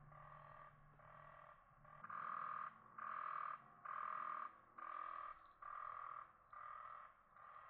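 Frogs calling: a rhythmic croak repeating about once a second, each call roughly half a second long.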